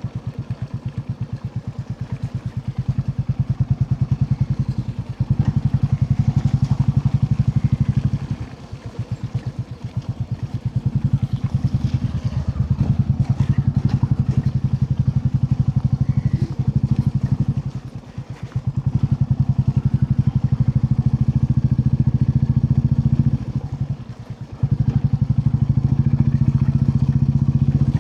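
Royal Enfield Classic 350's single-cylinder engine running under way, its exhaust pulsing evenly. The engine note drops off briefly three times and picks up again.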